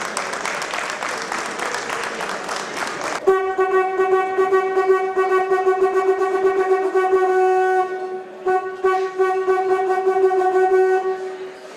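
Applause for about three seconds, then a hunting horn blown in long steady blasts on one low note. The blast breaks off briefly around eight seconds in, then sounds again until just before the end.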